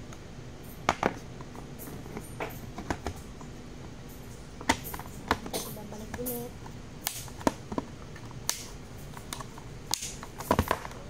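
Irregular sharp plastic clicks and knocks as a tan polymer Recover carbine kit is fitted around a Glock pistol and its parts pressed and snapped into place, with a cluster of quick clicks near the end.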